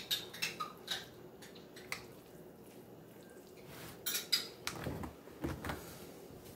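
Scattered light clinks and knocks of kitchenware being handled, a few near the start and a busier cluster about four to six seconds in.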